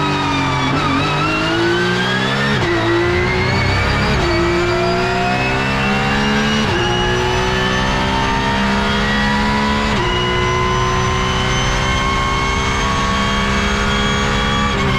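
Porsche 911 GT3 Cup (992) race car's 4.0-litre flat-six, heard from inside the cockpit. The pitch falls under braking for about the first second, then climbs at full throttle, dropping sharply at each of four quick upshifts.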